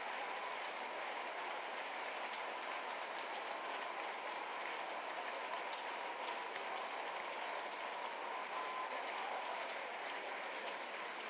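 Steady, dense noise of a whole congregation at once, many people praying aloud and clapping together in one even wash with no single voice standing out.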